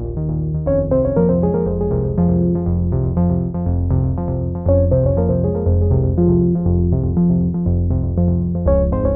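Background music on synthesizer keyboard: a quick run of short notes over a bass line that changes note about every half second.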